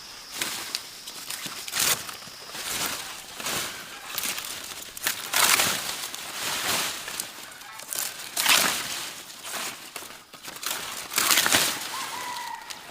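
Slow crunching footsteps, about one every second or so.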